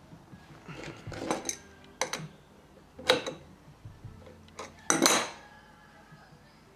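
Metal clinks and scrapes from handling the nuts and tools at the end of a mini mill's X-axis ball screw while the thrust-bearing lock nuts are readjusted. There are about five sharp clinks, each with a short ring, and the loudest comes near the end.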